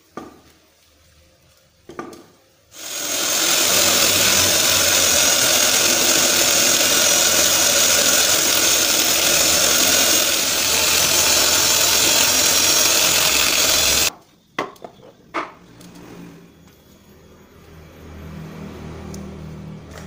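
Electric angle grinder fitted with a sanding disc, starting up about three seconds in, running steadily at high speed for about eleven seconds and then cutting off abruptly. A few short knocks before it starts and after it stops.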